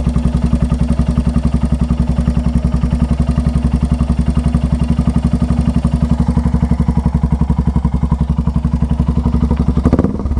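Royal Enfield Hunter 350's single-cylinder engine running hot at a steady speed with an even beat and a clattering 'kat kat kat' noise, which the owner suspects comes from the timing chain. The sound breaks briefly near the end.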